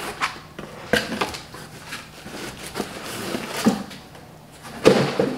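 Rummaging in a cardboard shipping box: packaged items rustling and knocking against the cardboard in scattered, irregular handling sounds, with a louder cluster of knocks near the end.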